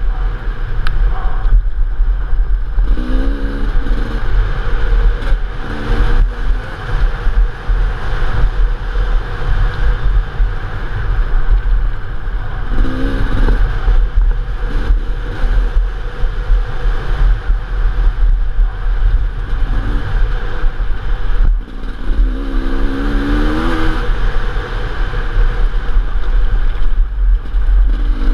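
Enduro dirt bike engine heard from a helmet-mounted camera, running under load with several short rises in revs, the longest about two-thirds of the way through. A heavy, steady rumble of wind and buffeting on the microphone runs underneath.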